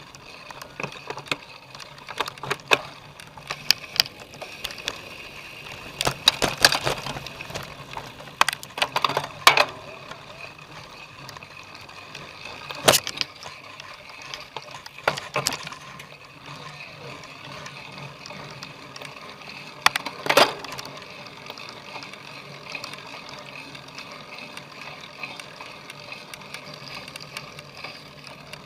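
Cyclocross bike ridden over rough ground: irregular rattles, knocks and clatters from the bike, over steady drivetrain and tyre noise, with heavier clusters of knocks several times.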